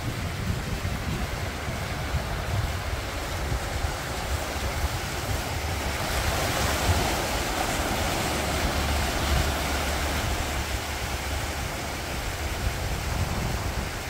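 Sea surf washing on the shore, with wind gusting on the microphone; the wash swells louder about six seconds in and eases again a few seconds later.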